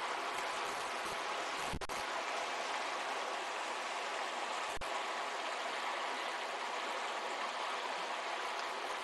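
Shallow river flowing over stones, a steady rush of water, with two brief low bumps at about two and five seconds in.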